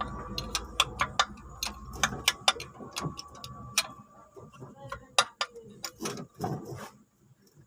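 Irregular sharp metallic clicks and taps of hand tools, a spanner or ratchet, working on the fuel pump and injector fittings of a truck diesel engine. A low steady hum underneath fades away over the first four seconds.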